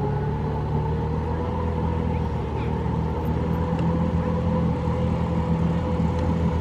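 Ford F-150 pickup running steadily while driving on a dirt trail: a low engine hum with a thin whine above it that rises slowly in pitch.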